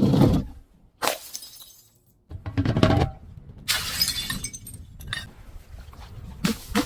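Glass bottles breaking and shattering: a series of about five separate crashes, each trailing off in the scatter of broken glass.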